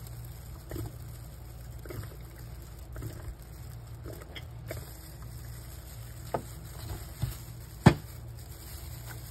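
Light plastic clicks and taps from a plastic ink bottle and an inkjet printer's ink tank and printhead parts being handled. The sharpest click comes about eight seconds in, over a low steady hum.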